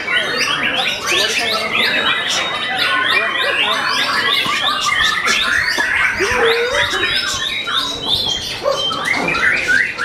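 White-rumped shamas (murai batu) singing over one another in a dense chorus of rapid whistles, trills and chattering notes. A long, high, steady whistle runs through the middle.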